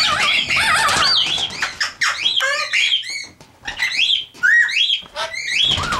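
Amazon parrot squawking loudly, riled up: a rapid run of harsh calls that rise and fall in pitch, with a short lull about halfway through.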